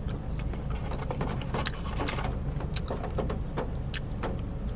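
Rain falling on the roof and windows of a parked car: a steady low rumble under scattered, irregular drop ticks.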